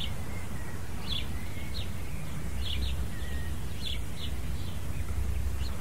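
Small birds chirping, short high falling notes a few times a second, over a steady low rumble of background noise.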